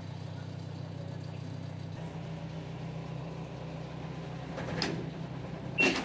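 LG top-loading washing machine running with a steady low hum. A knock comes near the end, then a click and a short control-panel beep as a button is pressed, and the hum stops.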